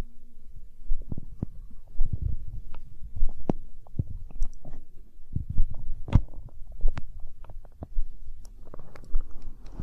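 Hungry human stomach growling: low gurgling, with many short, sharp pops and squelches, over a low thud about once a second.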